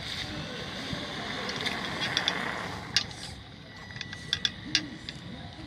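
RC monster truck running across wet asphalt, its tyres hissing through standing water, the hiss swelling and fading about halfway through. A few sharp clicks come in the second half.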